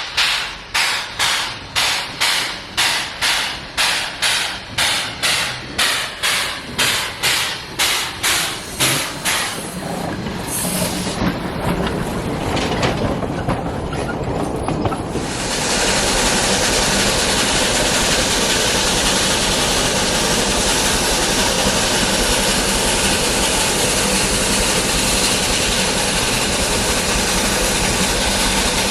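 Narrow-gauge steam locomotive exhaust chuffing in a steady beat of about two chuffs a second. The chuffs blur and, about halfway through, give way to a steady loud rushing hiss.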